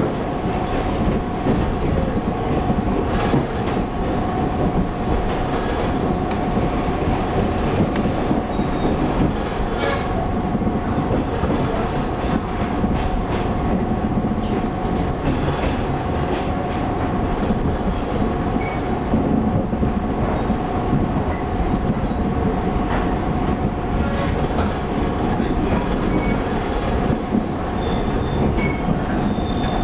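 Interior running sound of a Taiwan Railway electric multiple-unit local train: a steady rumble of wheels on track under a constant hum, with a few faint clicks.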